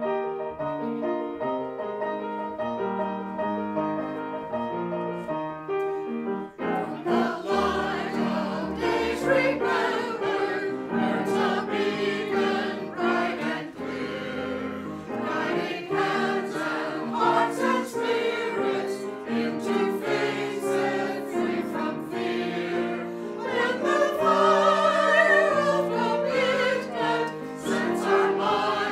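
A hymn sung by a choir with instrumental accompaniment. For the first six seconds or so there are held instrumental notes alone, then the voices come in singing the verse.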